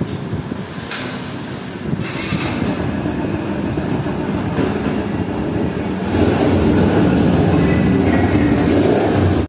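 Yamaha YBR's single-cylinder four-stroke engine running after being started with the new clutch switch connected, a sign the switch lets the starter work. It grows louder about six seconds in.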